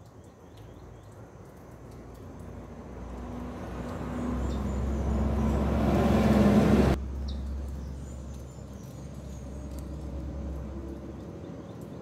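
A motor vehicle's engine and rumble growing steadily louder for about six seconds, then cutting off suddenly about seven seconds in, leaving a quieter steady background. There is also a faint high steady tone and a few small chirps.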